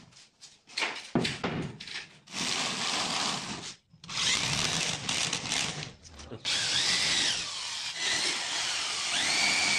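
Corded electric drill boring into plywood: a few short bursts, then three longer runs of a few seconds each, its whine dipping and rising in pitch as the bit loads up in the wood.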